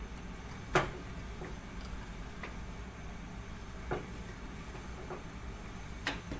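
Water boiling in an aluminium pot with crushed ginger and spices in it: a low steady rumble, with a sharp click about a second in and fainter clicks near four and six seconds.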